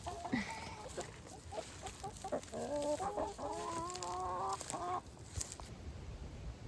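Chickens clucking: a string of short pitched hen calls, densest from about two and a half to five seconds in.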